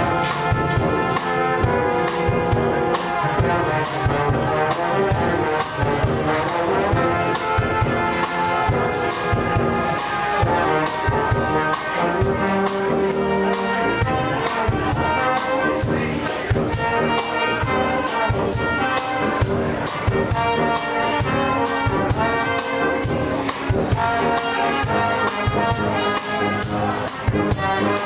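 Street band playing brass instruments, trumpet and trombone among them, over a steady drum beat of about two beats a second.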